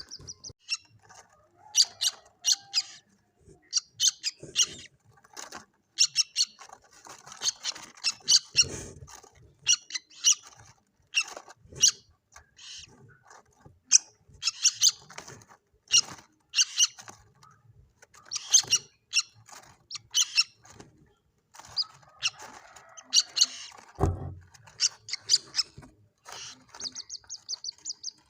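Common moorhen chicks calling: many short, high peeps in irregular clusters, with a quick run of calls near the end. A single low thump sounds a few seconds before the end.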